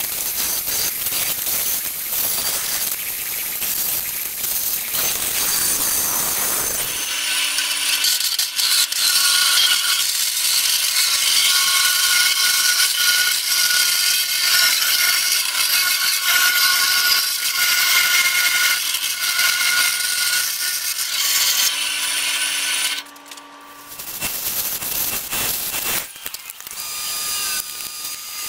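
Benchtop bandsaw cutting the profile of a quarter-inch 80CrV2 steel knife blank: a steady hiss of the blade through the steel over a constant hum, with high ringing tones. It drops off for about a second near the end, then resumes.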